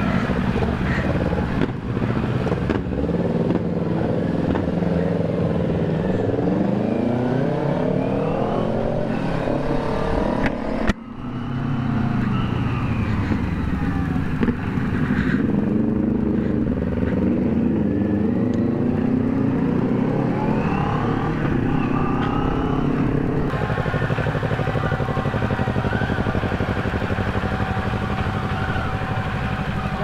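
Motorcycle engines running under way, the nearest the CFMoto 400NK's parallel-twin engine through an aftermarket muffler, with other bikes close by. The pitch rises and falls again and again with throttle and gear changes, with brief sudden drops about 11 and 23 seconds in.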